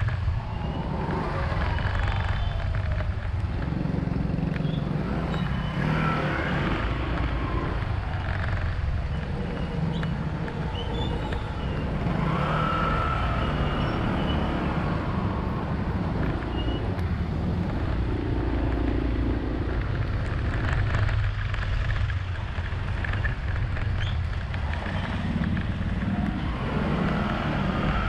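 Steady engine and road noise of a vehicle driving through city traffic, with the sound of other vehicles rising and fading as they pass.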